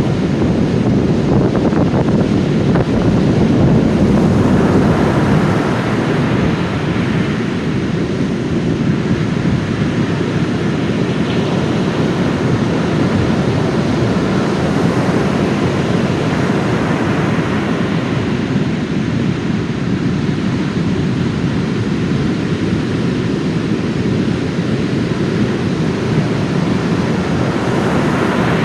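Heavy post-typhoon surf breaking on a sand beach: a continuous deep rumble of waves with slow swells as breakers crash and wash in, and wind buffeting the microphone.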